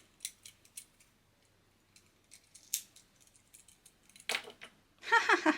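Small plastic fidget toy handled and moved about, giving scattered light clicks and taps as its movable legs and parts are worked.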